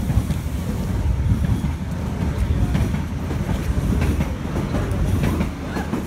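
Commuter train running past on the track beside the walker, a loud steady low rumble.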